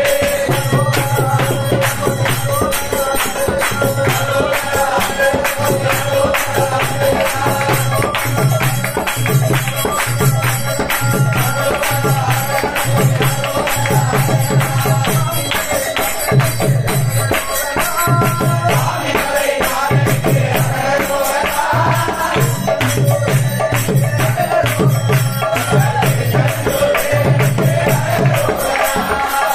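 A group of men singing a Tamil devotional bhajan to Murugan together, keeping time with steady hand clapping and a barrel drum beating a regular low pulse.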